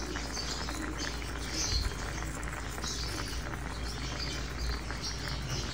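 Rice and water boiling in a frying pan, bubbling steadily over a low, even hum.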